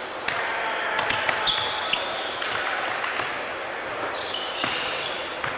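Basketball game sounds on a hardwood gym floor: the ball bouncing in a few sharp knocks, a cluster about a second in and more near the end, with sneakers squeaking in short high squeals over the steady noise of the gym.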